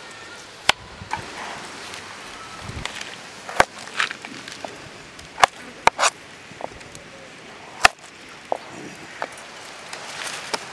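Sharp knocks and clicks, about a dozen, at irregular intervals over a steady rustling hiss.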